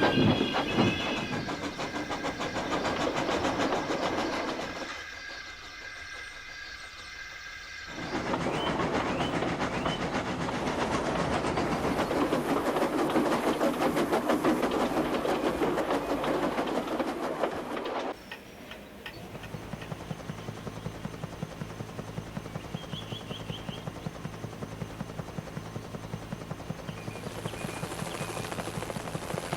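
Steam train sound effects: a locomotive running on the rails with its wheels clattering and steam chuffing and hissing. The sound is loudest in the middle stretch and drops to a quieter, steady rolling rhythm after about eighteen seconds.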